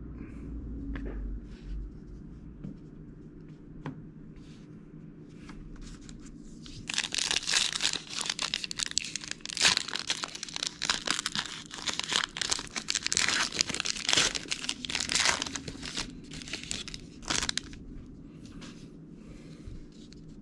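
A trading-card pack wrapper being torn open and crumpled in the hands: about ten seconds of dense tearing and crinkling starting about a third of the way in. Before it there is only faint handling with a few soft clicks.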